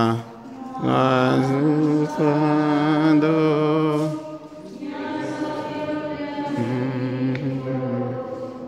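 A church choir singing a slow hymn in Spanish, with long held notes and short breaths between phrases.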